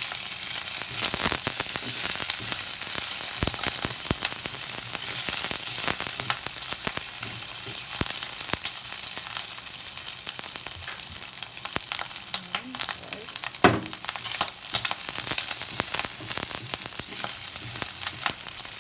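Pork frying with garlic, onion and tomato in hot oil, a steady sizzle full of small popping crackles, with a single sharp knock about fourteen seconds in.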